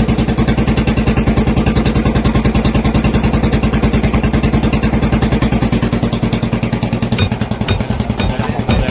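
Royal Enfield Bullet 350 single-cylinder engine idling through a short 'mini Punjab shot bottle' aftermarket silencer, a loud, even, rapid beat. About seven seconds in the beat turns uneven, with a couple of sharp pops from the exhaust.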